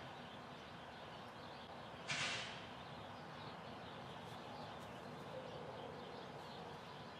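Front-loader garbage truck's diesel engine running faintly at low revs as it pulls away, with one short, sharp hiss about two seconds in.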